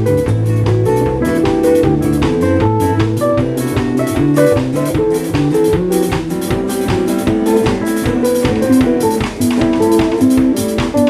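Live band playing: electric guitar notes over a bass line and a drum kit keeping a steady beat.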